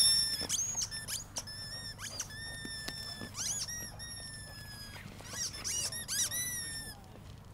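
A dog chewing a squeaky toy, setting off repeated high-pitched squeaks in irregular clusters. Some squeaks are short and some are held for up to about half a second, and they stop shortly before the end.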